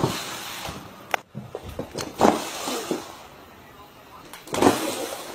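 A cardboard box scraping and bumping across a wooden floor as a cat plays with it, in several short bursts with a click about a second in, and a person's voice now and then.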